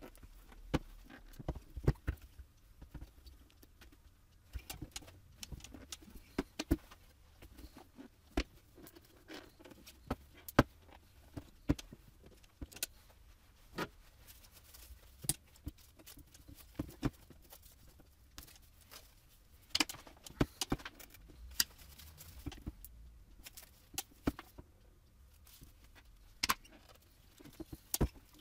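Scattered clicks and knocks of a car headlight's plastic housing and lens being handled and pressed together on a table.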